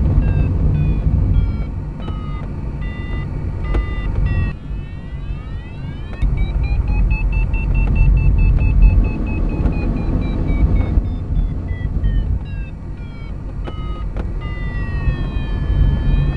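Steady low rush of air around the PW-5 glider's cockpit canopy, with an electronic audio variometer beeping in short notes that step up and down in pitch. About six seconds in, the variometer holds one long tone that rises and then falls, and it sweeps down and back up near the end. The variometer's pitch tracks the glider's climb and sink.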